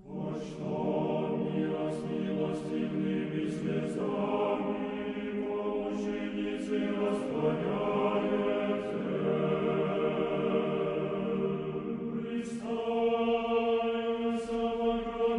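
Choir singing slow, sustained chant in held chords, the harmony shifting every few seconds, with the singers' hissing consonants audible.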